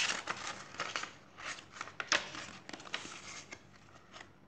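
Paper pages of a picture book being turned and handled: a run of irregular rustles and crackles that fades out about three and a half seconds in.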